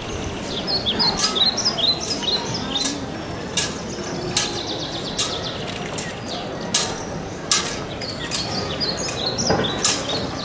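Small birds chirping in quick, falling notes, with short sharp clicks repeating about every three-quarters of a second.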